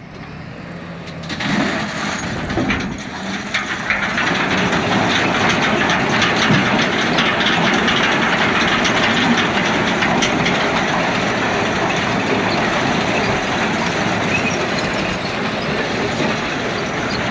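Usarya stone picker at work, towed by a tractor: a dense, steady clatter of stones and soil rattling through its rotating drum over the tractor's engine, building up over the first few seconds.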